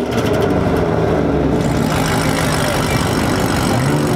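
Chevrolet C7 Corvette's V8 running at a steady low idle, then revving up briefly near the end.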